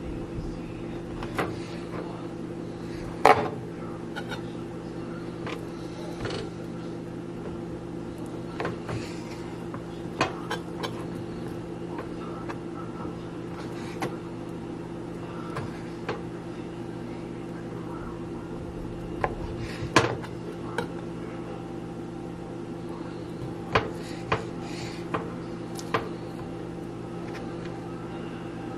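Kitchen knife cutting raw chicken breast on a cutting board: scattered sharp knocks of the blade reaching the board at irregular intervals, the loudest about 3 s and 20 s in, over a steady low appliance hum.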